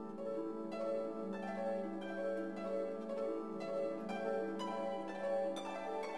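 Background music: a run of plucked notes over a held low note.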